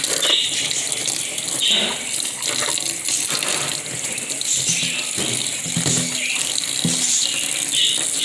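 Bathroom sink faucet running steadily, with a pet bird bathing in the stream of water.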